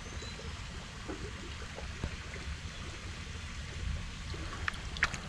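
Faint trickling, splashing water over a low steady rumble, with two light clicks near the end.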